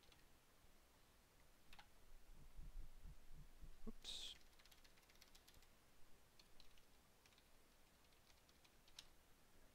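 Faint computer keyboard typing: scattered key clicks as a command is typed, erased and retyped. A short breathy hiss stands out about four seconds in.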